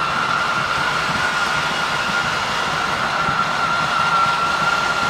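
Travel trailer's electric slide-out motors running steadily as the slide room extends, a steady whine over a mechanical hum.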